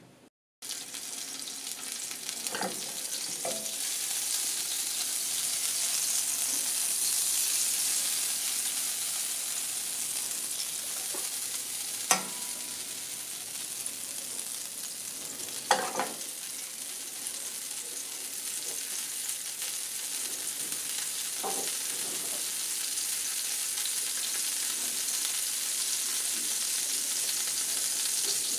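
Margarine melting and sizzling in a hot non-stick frying pan, a steady hiss. A few short knocks sound over it, two of them sharper than the rest.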